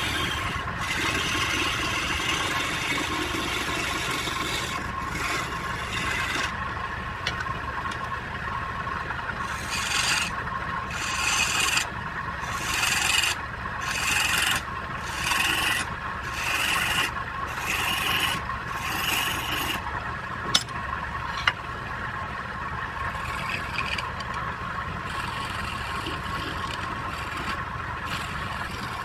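Wood lathe running with a steady hum while the spinning wood is rubbed and scraped; from about ten seconds in come regular scraping strokes roughly one a second, and a little later two sharp clicks.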